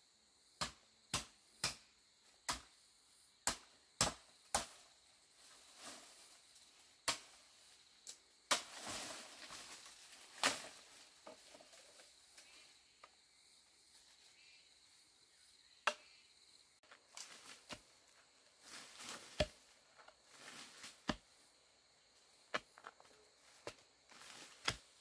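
Sharp, irregular knocks and clicks of hand work, with a stretch of rustling and scraping about a third of the way in. A steady, high-pitched insect drone runs underneath.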